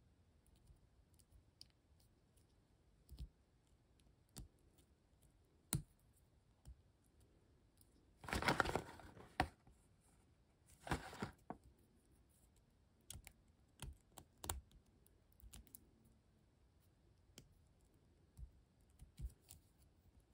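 Faint scattered clicks and taps of a small plastic transforming toy figure being handled and worked at, its parts being pried at. There are two short rustling bursts, about eight and eleven seconds in.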